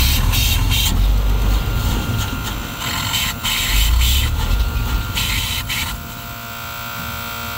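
A 5-ton military 6x6 truck's carbureted gasoline engine is cranked on the starter, churning with uneven surges, and stops abruptly near the end. The crew takes it to have burned through the fuel left in the carburetor bowl.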